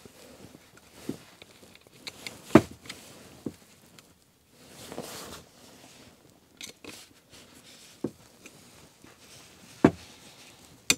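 Scattered small clicks and knocks of a hex key and Headshok fork parts being handled on a workbench, the loudest about two and a half seconds in. A brief rustle comes near the middle.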